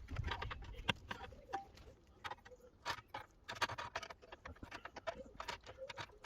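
Light, irregular clicks and taps of hand tools working a bent sheet-metal body panel, a few knocks a second.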